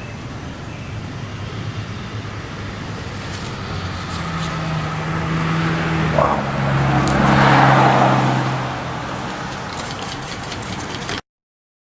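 A motor vehicle passes by. Its engine hum drops in pitch as it goes past, and tyre noise swells to a peak about seven to eight seconds in, then fades. The sound cuts out abruptly near the end.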